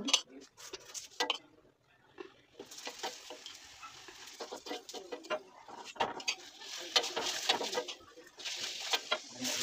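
Oil sizzling and crackling under a paratha in a hot iron frying pan, with a steel spoon clinking and scraping on it as the oil is spread. The sizzle starts about three seconds in.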